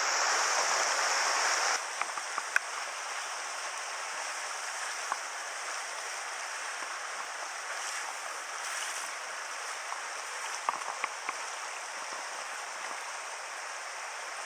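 Mountain river water rushing steadily over rocks, louder for the first two seconds and then settling lower, with a few faint ticks on top.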